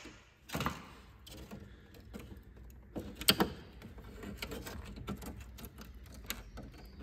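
Scattered light clicks and rattles of a plastic carbon-look honeycomb grille being handled and pressed into place in a car's front bumper, with one sharper click about three seconds in.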